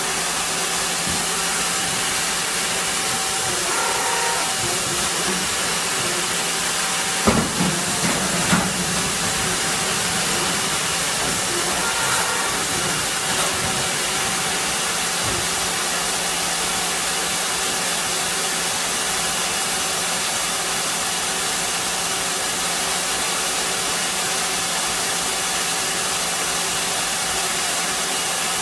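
CNC machine running with a steady hum and hiss, with a few short clunks about seven to nine seconds in.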